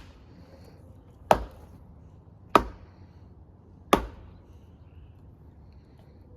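An axe chopping into a log, three strikes about 1.3 seconds apart, each a sharp thwack with a short ring.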